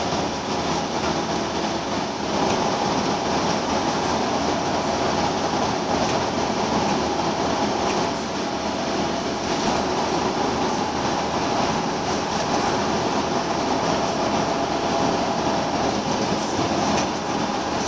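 Scania L94UB Wright Solar single-deck bus heard from inside the saloon while under way: its rear-mounted diesel engine running steadily under road and body noise, with a steady whine over the rumble.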